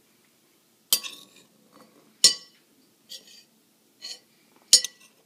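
A metal spoon clinking against a cut-glass bowl of pomegranate seeds: three sharp clinks a second or two apart, each with a brief glassy ring, and a couple of softer taps between them.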